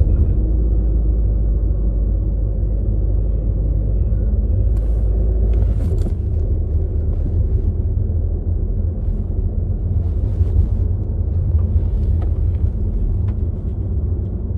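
Car cabin rumble from the engine and tyres while driving, a steady low drone whose deepest part eases about five seconds in.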